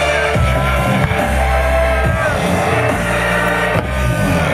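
Music with a heavy bass line of sustained low notes and held higher tones.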